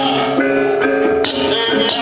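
Music for a Balinese ogoh-ogoh performance, with several held ringing tones. The bright high clatter around it drops out for most of these seconds and returns near the end.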